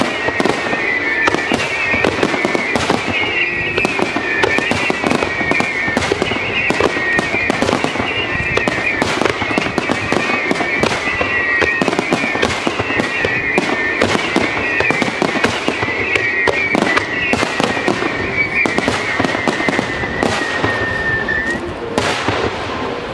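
Starmine fireworks barrage: shells bursting and crackling in rapid, continuous succession, easing off near the end.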